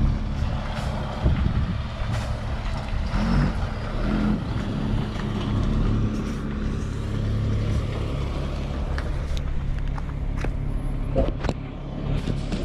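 An engine running steadily, a low hum, with scattered clicks and knocks over it.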